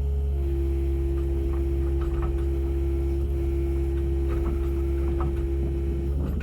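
Kubota KX080 mini excavator's diesel engine running steadily, with a low hum and a steady whining tone that begins just after the start and cuts off near the end, plus a few light clicks.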